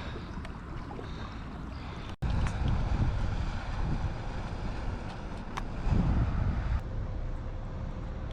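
Wind buffeting the microphone over lapping water around a kayak, with a few light clicks. The sound drops out for an instant about two seconds in and comes back louder and rumblier.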